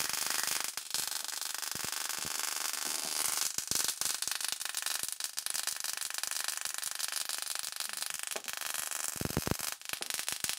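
High-voltage sparks from an ignition coil pack arcing onto a headlight bulb: a steady crackling hiss made of many rapid snaps. A homemade CD-spindle capacitor on the coil output makes the sparks longer.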